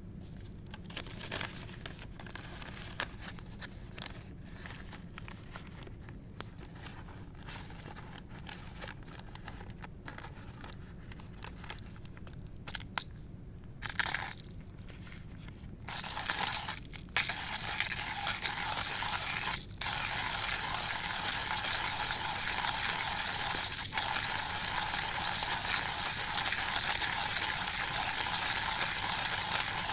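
Hand coffee grinder: scattered light clicks as the grinder is handled, then from about sixteen seconds in, steady continuous grinding as the crank is turned and beans are milled.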